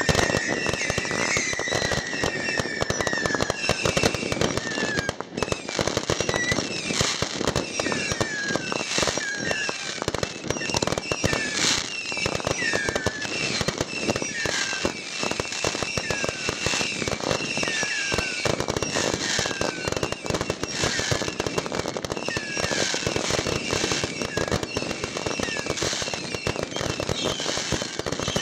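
Ground fireworks fountains spraying sparks with a dense, continuous crackle, overlaid by repeated short whistles that fall in pitch.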